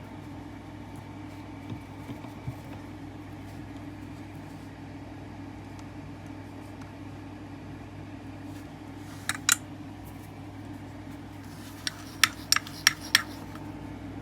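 Sharp small clicks and taps of tools and parts handled on a soldering bench, two about nine seconds in and a quick run of about five near the end, over a steady low fan hum.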